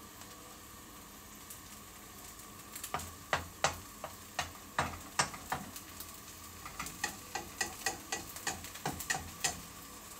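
Thick batter frying in a pan with a low steady hiss. From about three seconds in, a cooking utensil clicks and taps against the pan over and over.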